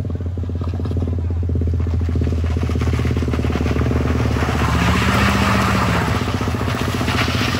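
Front-wheel-drive Toyota Calya MPV's engine pulling steadily up a steep, rutted gravel grade, with a motorbike's engine mixed in. The crunch of tyres on loose stones grows louder from about halfway through as the car comes closer.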